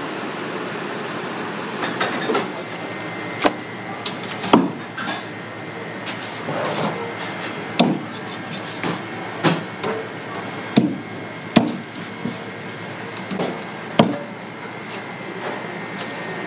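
Knife blade striking a thick round wooden chopping block in sharp, irregular knocks, about a dozen, as a monkfish is cut up and gutted. A steady background hiss and a faint high tone sit underneath.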